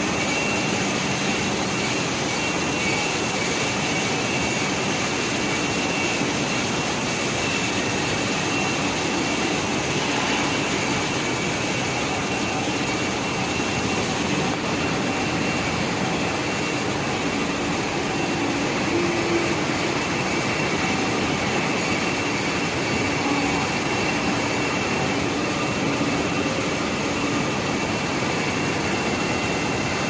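Cable extrusion line and factory machinery running steadily: a constant loud hiss and hum with a faint high, steady whine.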